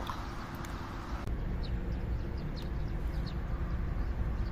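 Outdoor ambience: a steady low rumble with a few short, thin bird chirps scattered through it.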